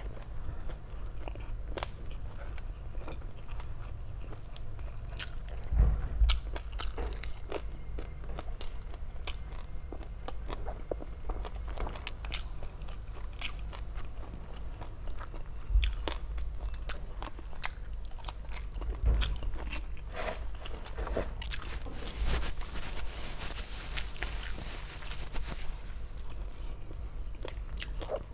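A person chewing and biting into crispy lechon kawali (deep-fried pork belly) close to the microphone: a continuous run of crackly crunches and chewing clicks, heaviest a little before six seconds in and again around nineteen seconds.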